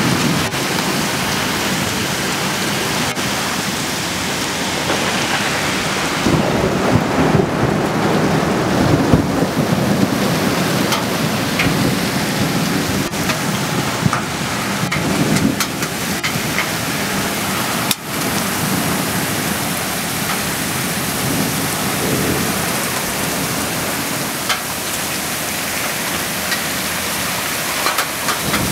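Heavy rain pouring steadily in a thunderstorm, with a low roll of thunder swelling from about six to ten seconds in.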